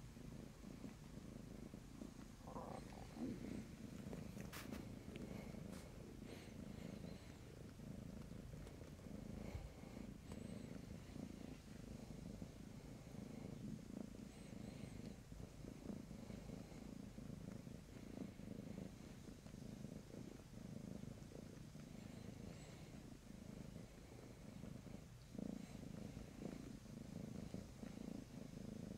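Domestic cat purring steadily in a slow in-and-out pulse while kneading a plush bed. One brief click about four and a half seconds in.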